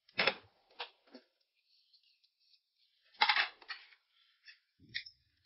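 Tableware clinking at a meal: a few short, sharp clinks and clatters, the loudest about a quarter second in and about three seconds in.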